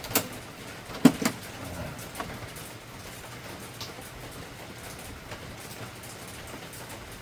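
Inkjet printer cartridges and printer being handled: a few sharp plastic clicks and knocks, the loudest about a second in, then only a steady background hiss.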